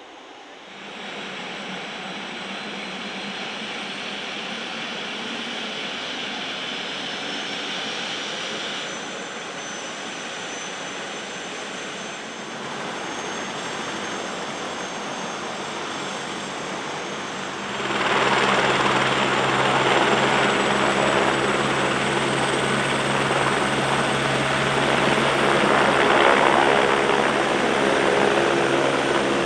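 Single-engine AS350-type light helicopter, its turbine whine rising slowly as it spools up with the rotor turning. About two-thirds of the way through the sound abruptly gets much louder and fuller, with a steady low rotor beat, as the helicopter hovers close by.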